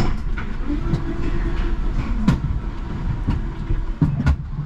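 Škoda 39T tram running on its rails, heard from on board: a low rumble with irregular knocks and clicks from the track, and a brief steady hum about a second in.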